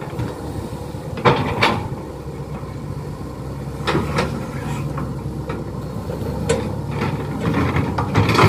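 Sumitomo crawler excavator's diesel engine running steadily under work, with a few short knocks and clanks as the bucket works the soil, more of them near the end.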